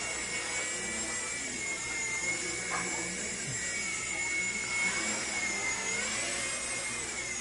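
Walkera CB100 micro RC helicopter's electric motors and rotors whining steadily in flight, the pitch wavering slightly with the throttle and dipping briefly near the end.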